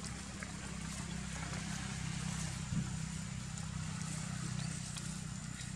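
A steady low rumble, with a few faint clicks and rustles and a thin high tone held throughout.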